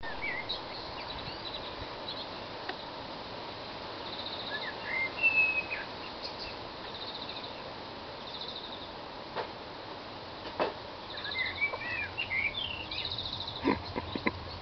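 Songbirds singing: scattered chirps and short whistled glides, with a rapid high trill repeated about four times. A few sharp clicks in the second half.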